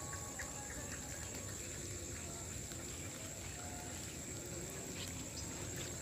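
Faint swamp ambience at dusk: a steady, high-pitched insect drone over a low rumble, with a few faint ticks.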